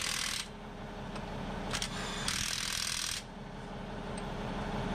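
Cordless drill boring a 3/4-inch hole through steel for a brake line, run in short bursts: one stops about half a second in, and a second lasts about a second in the middle, with a click between them.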